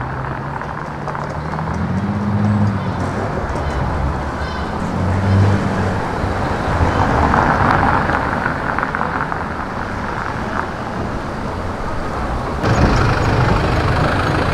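Street traffic: car engines running and passing with steady road noise. Low engine tones come and go, and the sound changes abruptly near the end.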